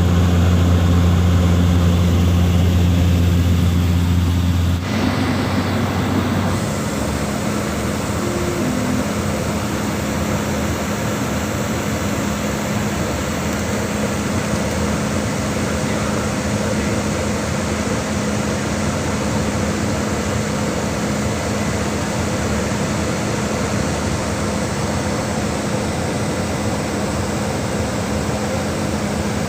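Steady drone of a small propeller plane's engine and propeller heard inside the cabin. About five seconds in, the low hum changes pitch, then it runs on evenly with a steady tone.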